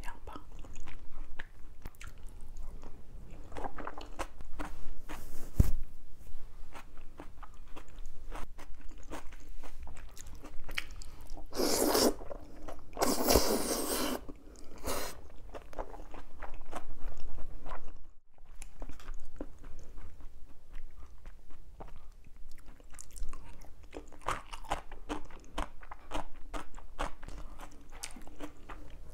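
Close-miked eating of jjajangmyeon (black-bean-sauce noodles): chewing and wet mouth clicks, with two loud noodle slurps about twelve seconds in and again for a couple of seconds just after.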